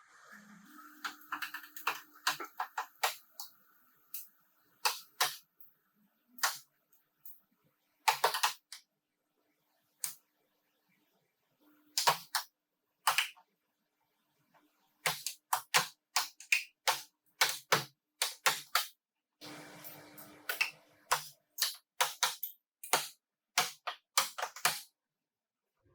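Irregular sharp clicks and taps, some single and some in quick runs of several, with short stretches of silence between them.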